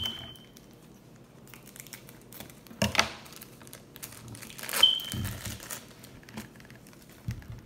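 Crinkling of plastic toy packaging bags being handled, mostly quiet with scattered small clicks, and two louder sharp crackles about three and five seconds in.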